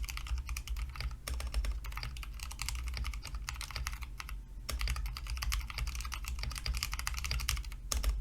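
Fast, continuous typing on a mechanical keyboard, a rapid stream of key clicks with brief pauses about a second in and midway.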